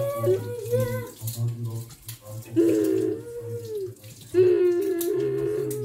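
Kitchen tap running into a sink while something is rinsed under the stream.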